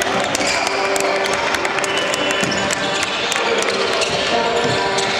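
Basketball being dribbled on an indoor court during a game: repeated sharp bounces over the busy din of the gym.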